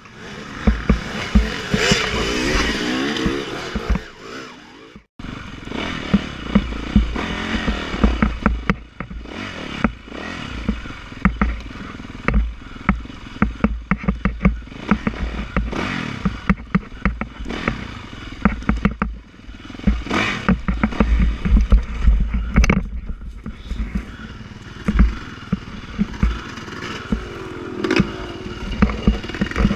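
2015 Yamaha YZ450F's single-cylinder four-stroke dirt-bike engine revving up and down in short bursts at low trail speed, with frequent sharp knocks and clatter from the bike banging over rough ground.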